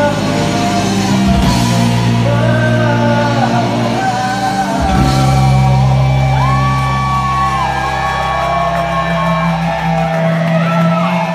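Live rock band playing: held bass and electric guitar notes with a singer's voice over them, in a large room. The deep low notes cut out near the end.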